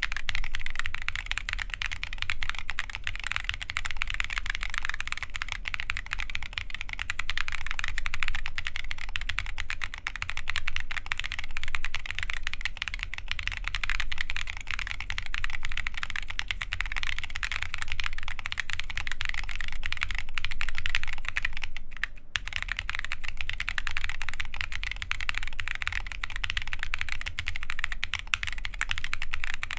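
Steady, continuous typing on an Adélie mechanical keyboard with lubed Holy Boba tactile switches, KAT Alpha keycaps and a carbon-fibre plate: a dense patter of key presses. The typing stops briefly a little past twenty seconds in, then goes on.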